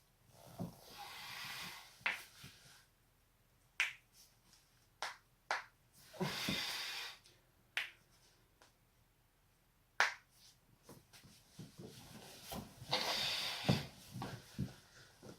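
A person's joints cracking: about ten sharp, separate pops spread through, with a few longer stretches of soft noise in between.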